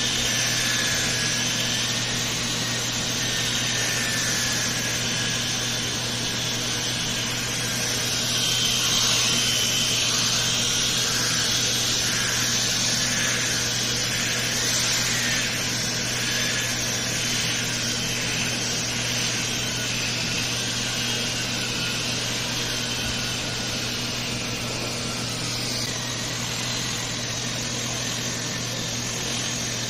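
A power tool or cleaning machine running steadily, with a low hum under a high whine that wavers slightly in pitch.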